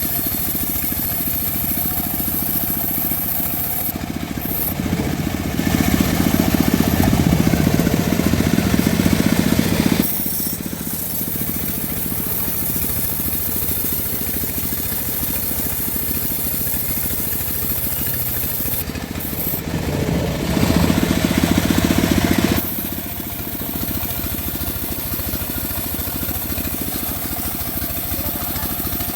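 Engine-driven homemade bandsaw mill running steadily while sawing mahogany. It grows louder twice, once for about six seconds and later for about three, as the blade bites into the log.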